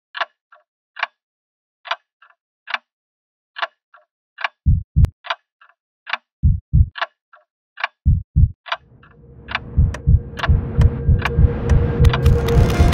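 A ticking clock: a sharp tick about once a second with a fainter tick between. It is joined after about four and a half seconds by pairs of deep thumps like a heartbeat. From about nine seconds, a swelling wash of noise and low pulsing grows steadily louder.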